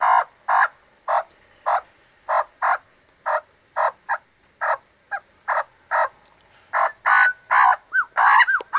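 Australian magpie calling: a run of short, harsh squawks about two a second, breaking into longer warbling, gliding notes near the end.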